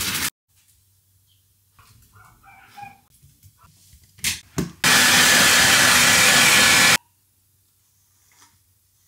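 Blow dryer running with a loud, steady rush for about two seconds, starting and cutting off sharply, drying a wet dog. Two sharp clicks come just before it, as the dryer is plugged into the wall socket. A similar burst of dryer noise ends just at the start.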